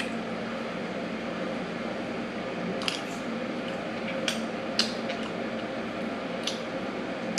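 Spoon and fork clinking and scraping against ceramic plates and a serving bowl as food is dished up and eaten: about five light clicks over steady room noise.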